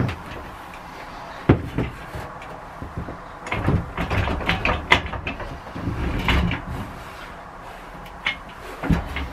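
Irregular knocks and clunks of a motorcycle frame and its newly fitted monoshock swing arm as a person climbs on and settles his weight on the bike on its centre stand, with a dense run of clicks and knocks in the middle.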